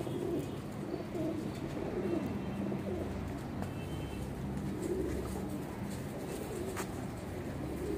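Domestic flying pigeons cooing, several low coos following one another every second or so, with a single sharp click about seven seconds in.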